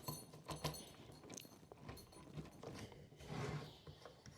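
Faint, scattered clicks and light taps of a power cable and plastic parts being handled, several close together in the first second and a half, then a softer patch a little past three seconds.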